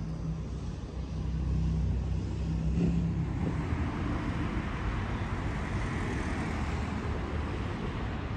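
Motor vehicle engine running with a steady low hum for the first three seconds, then a rising rush of road traffic noise from about four seconds in.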